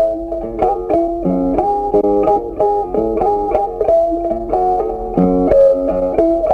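Background music: a plucked guitar melody, with notes following each other quickly over a low bass line.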